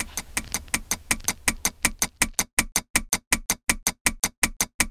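Clock-ticking sound effect: an even run of sharp ticks, about six a second.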